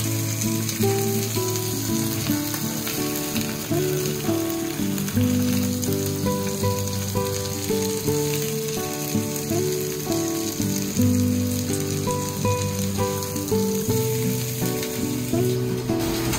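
Beef steak searing in hot oil in a frying pan, a steady sizzle throughout, under background music with a slow melody of held notes.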